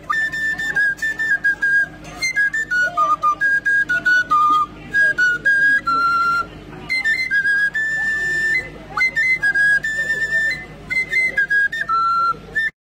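A high flute melody of short notes stepping up and down, played in phrases with short pauses between them.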